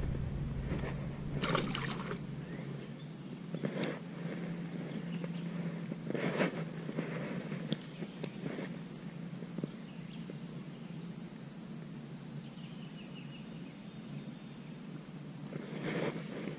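Steady high-pitched insect drone over a quiet outdoor background. A few brief knocks and rustles come from handling the fishing rod close to the microphone, the plainest about two seconds in, around four and six seconds in, and near the end.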